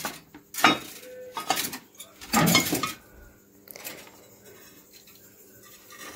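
Long-handled garden tools clattering and knocking against each other and the other tool handles as they are stood back in a crowded storage corner: a few sharp knocks in the first three seconds, the loudest about two and a half seconds in, then only faint rustling.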